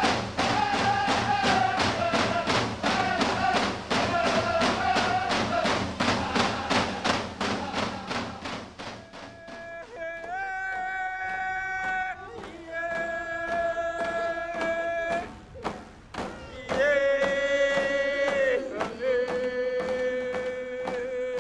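Music: a drum beating a fast steady pulse under chanted singing. About nine seconds in the drum stops, and four long held notes follow, each one lower in pitch than the one before.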